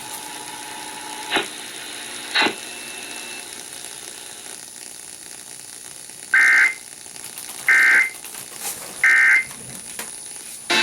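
Emergency Alert System end-of-message signal: three short bursts of screechy SAME digital data tones, about a second and a half apart, marking the end of the alert test. Before them come two faint clicks over a steady background hiss.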